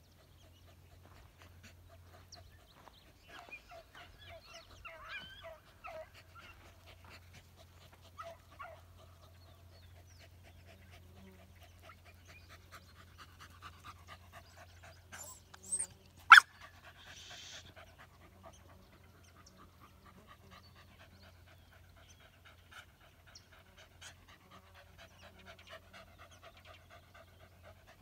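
Beagle scent hounds working through brush, with dog panting and short repeated dog calls. There is one sharp crack, the loudest sound, about sixteen seconds in.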